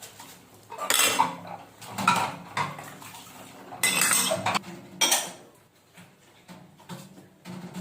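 Dishes and cutlery clattering: a series of sharp clinks and knocks of bowls and utensils, the loudest about one, two, four and five seconds in, with lighter ones near the end.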